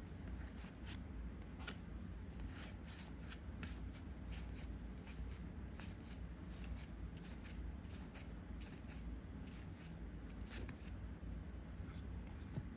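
Trading cards being flipped and slid against one another in the hand: a scatter of short, irregular flicks and clicks over a low steady hum.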